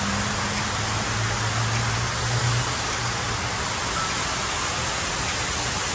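Steady rushing of water pouring down the Hines Waterwall, a large outdoor fountain, with a low hum underneath during the first half.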